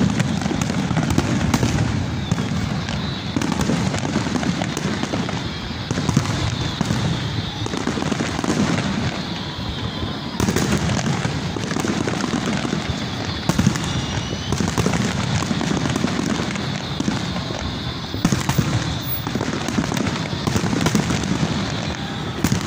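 New Year fireworks display: a continuous barrage of bangs and crackling as many shells burst together.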